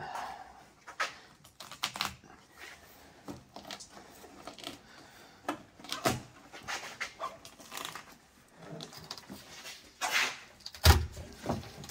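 Irregular knocks, clicks and scrapes of hand work prying at a car part stuck in with silicone glue, with a louder knock near the end.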